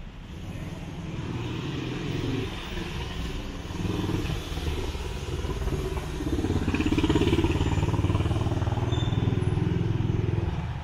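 City street traffic with a motor vehicle's engine rumbling close by. It grows louder, is loudest in the second half, then drops away abruptly at the very end.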